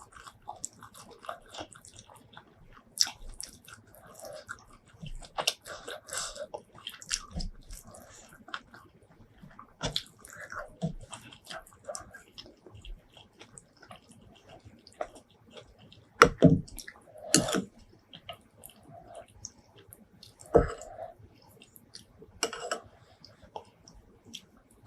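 Close-miked chewing and wet mouth smacks from eating shrimp curry with rice, made of many short, irregular clicks. A few louder knocks stand out about two-thirds of the way in.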